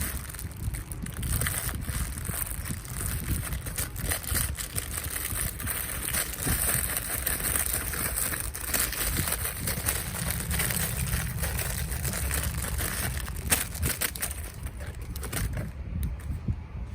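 Plastic packaging crinkling and rustling as it is handled, with many small crackles and one sharper click about two-thirds of the way through; the crackling thins out near the end.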